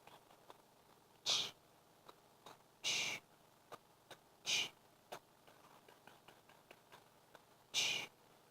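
An animal making four short, high-pitched calls, spaced roughly one and a half to three seconds apart.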